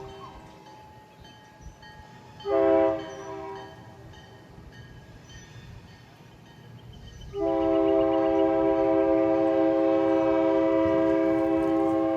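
Chime horn on the GP9U diesel locomotive blowing for grade crossings: a short blast a few seconds in, then after a pause one long steady blast through the end, several tones sounding together. A low locomotive rumble runs between the blasts.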